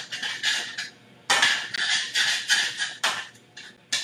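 Hot frying pan sizzling as water deglazes the stuck-on sauce, while tongs stir and scrape the bottom, in several bursts of hiss.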